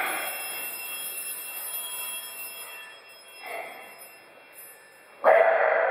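Altar bell rung at the elevation of the chalice: a ringing strike fading out, a fainter ring about three and a half seconds in, then a loud ring about five seconds in.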